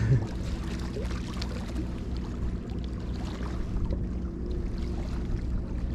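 A steady low engine hum throughout, with faint water sounds and small clicks over it. A brief low thump comes right at the start.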